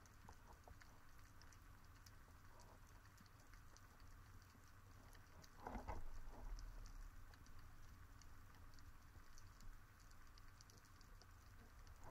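Faint underwater ambience: a scattering of small crackling clicks over a low rumble, with one soft thump about six seconds in.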